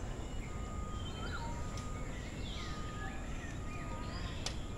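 Several birds chirping and calling in short notes that rise and fall, over a steady low background rumble, with one sharp click near the end.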